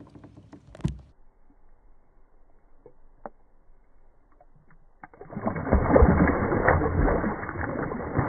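Quiet with a few light clicks and a knock about a second in, then wind buffeting the microphone from about five seconds on, loud, gusty and rumbling.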